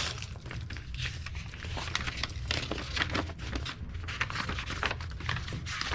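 Crinkling, rustling handling noises with many small irregular clicks, like hands working plastic packaging and small metal parts, over a low steady hum.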